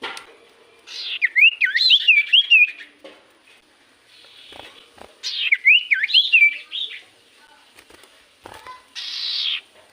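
Common iora (cipoh) song as played for luring birds: two phrases of rapid, looping whistled notes, each about one and a half seconds long and about four seconds apart, followed near the end by a short harsh rasp.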